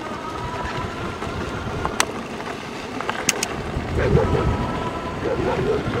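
Electric bike pulling away on a dirt road: a faint steady whine from its electric motor over a loud, rumbling windy noise, with a couple of sharp clicks about two and three seconds in.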